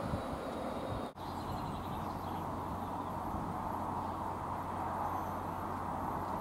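GB Railfreight Class 66 diesel locomotive, its two-stroke EMD V12 engine running with a steady low drone as it approaches at the head of a train of engineering wagons. The sound drops out for an instant about a second in.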